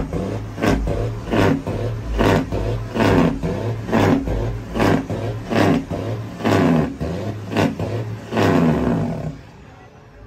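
Big-rig diesel engine revved in short, loud blasts, about a dozen in an even rhythm a little faster than one a second, over a steady low hum. The blasts stop about nine seconds in.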